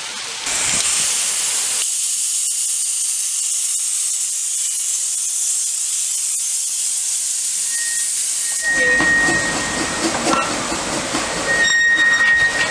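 A small 0-4-0 narrow-gauge steam locomotive, a replica of a Lewin engine, blowing off steam in a loud, steady hiss. About nine seconds in it moves off, and the hiss gives way to a rougher rumbling running noise with knocks and a short high tone, twice.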